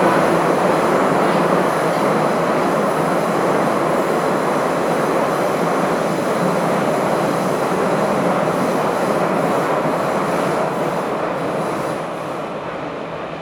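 A Bucharest Metro Line M1 train running through a tunnel, heard from inside the passenger car: steady wheel-on-rail running noise that grows quieter near the end.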